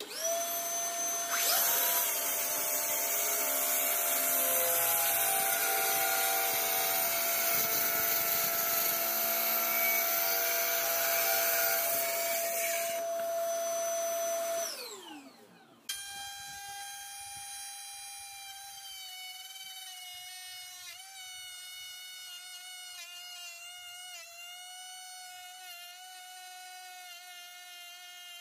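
A Ryobi cordless track saw cuts along the edge of a wood slab for about eleven seconds, with a vacuum on its dust hose running alongside, then winds down with a falling whine. After a cut, a second hand-held power tool shaves a board's edge with a steady, quieter whine.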